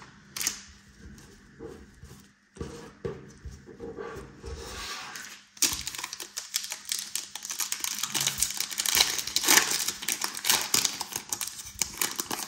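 Trading cards being handled and squared into a stack with soft taps and rustles. About halfway through, loud continuous crinkling and crackling starts as a foil trading-card pack wrapper is squeezed and torn open.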